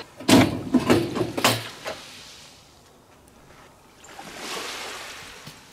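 Rattling and clanking of a steel-mesh storage cage door being unlocked and swung open during the first second and a half. Later, a soft rush of surf swells and fades, with a single click right at the end.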